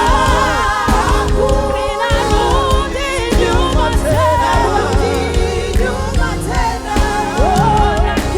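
Live gospel praise-and-worship music: singers with sliding vocal runs over a band with heavy bass and drums.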